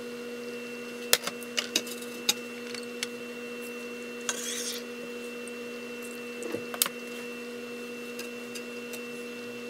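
Metal tongs clicking and scraping against a ceramic bowl while noodles are served, with a short splashy pour of broth from a pan at about four and a half seconds in. A steady hum runs underneath.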